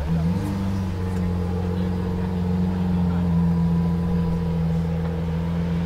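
Lamborghini Aventador Roadster's 6.5-litre V12 breathing through a Capristo aftermarket exhaust, running steadily at low revs with only a slight wobble in pitch.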